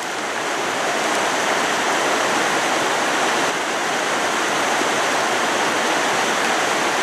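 Mountain creek running high and fast over its rocky bed, swollen by weeks of rain: a steady, loud rushing of water.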